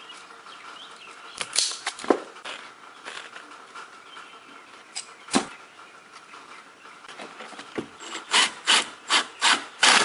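A ring terminal being crimped onto a wire and fastened to a ground bolt. A few scattered sharp clicks come first, then a quick run of rasping strokes, about three a second, near the end as the terminal goes onto the bolt.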